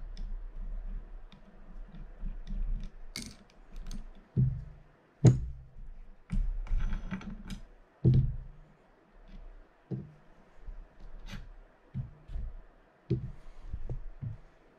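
Penn Senator 113H fishing reel and small tools being handled on a bench during disassembly: scattered sharp clicks and light knocks, with a short rasping stretch about seven seconds in.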